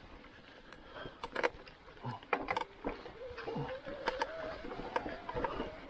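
E-mountain bike riding over dry leaf litter and twigs on a forest trail: rustling tyre noise with scattered sharp snaps and clicks. From about three seconds in, the mid-drive motor's wavering whine comes in under pedalling.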